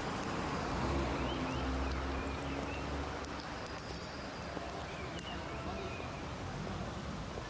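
Outdoor background noise: a steady low rumble like distant traffic, swelling for a couple of seconds about a second in, with a few short high chirps like birds.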